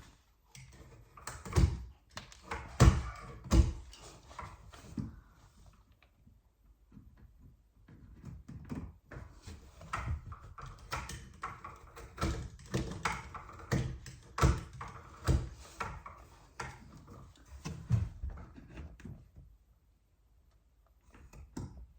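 Knife cutting and scraping a wooden door edge to round it off, with irregular sharp knocks and clunks from handling the wood. The work pauses briefly twice.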